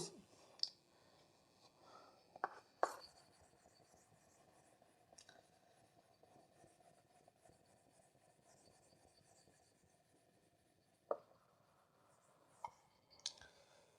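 Faint writing sounds: a few short taps and scratches scattered through near silence, about three near the start and three near the end.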